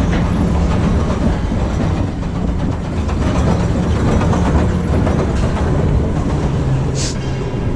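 Steady, loud low rumble of a large vehicle under way, with a short sharp hiss about seven seconds in.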